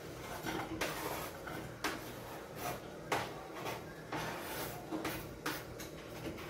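Chopped onion being scraped off a plastic cutting board into a cooking pot: a series of short scraping and knocking noises, about seven, some lasting up to half a second.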